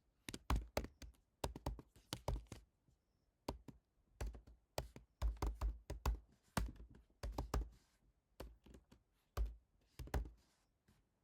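Typing on a computer keyboard: irregular runs of sharp keystrokes with short pauses between them.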